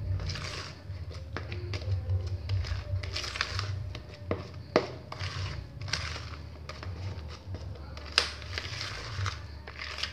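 Thick cake batter being stirred and folded by hand in a plastic bowl: repeated wet squishing and scraping strokes at an uneven pace, with a few sharp knocks against the bowl.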